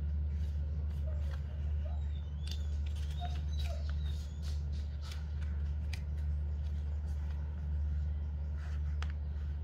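Light paper and cardboard handling: scattered soft ticks and rustles as a small hand-bound book with cardboard covers is turned over and its pages opened. A steady low hum runs underneath, and a few faint short squeaks come between about one and four seconds in.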